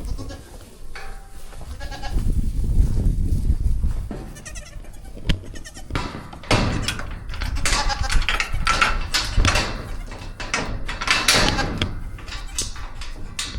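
Baby goats bleating, several short calls overlapping, with some knocks and rustling.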